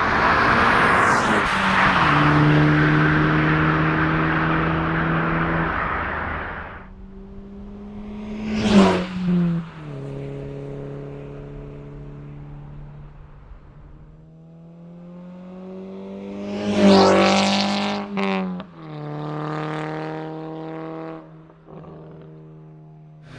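Volkswagen MK6 GTI's turbocharged four-cylinder engine and exhaust running, its note stepping and gliding up and down in pitch. A rushing noise sits over it for the first seven seconds, and two short loud bursts come about 9 and 17 seconds in.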